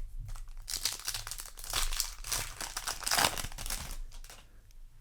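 Foil wrapper of a Yu-Gi-Oh! booster pack crinkling and tearing as the pack is opened, a dense crackle from about a second in to near the end, loudest a little past the middle.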